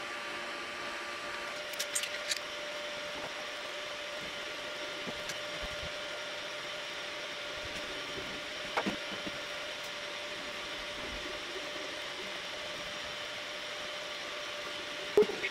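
Elegoo Neptune 3 Plus 3D printer running a print: a steady whir of its fans with a steady hum-like tone, broken by a few short clicks, the sharpest near the end.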